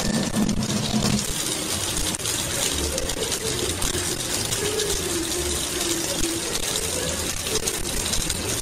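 Kitchen faucet running in a steady stream into a sink.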